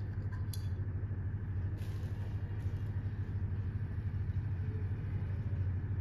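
A steady low hum, with a faint metallic clink about half a second in and a brief rustle around two seconds in as a parakeet handles a small metal can with its beak and foot.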